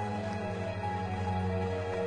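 Background music with sustained, held notes and a steady low tone.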